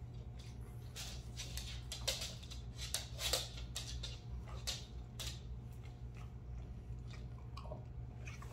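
French bulldog sniffing and snuffling at close range, a run of short noisy bursts most dense between about one and five seconds in, over a steady low hum.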